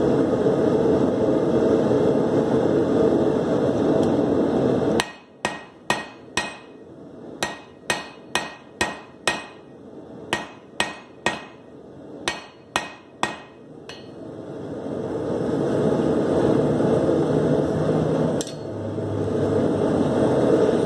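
Hand hammer striking a red-hot steel bar on an anvil, drawing it out: about fifteen sharp blows in quick runs of three to five, each with a short ring. A steady hum cuts off abruptly just before the first blow and fades back in after the last.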